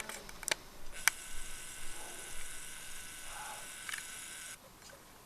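Handheld video camera's zoom motor whirring with a steady high whine that starts about a second in and cuts off suddenly, with a few sharp handling clicks around it.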